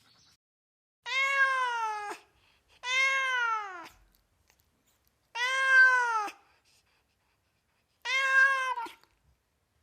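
A cat meowing four times, long meows of about a second each that fall in pitch at the end.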